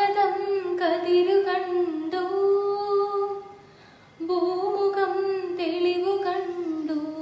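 A young woman singing solo in two long, slow, held phrases, the second beginning about four seconds in after a short pause for breath.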